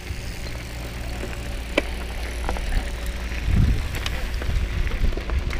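Pivot Firebird mountain bike rolling down a dirt trail: low rumble of tyres and wind on the mic, with scattered sharp clicks and rattles from the bike over bumps and a louder rumble about three and a half seconds in.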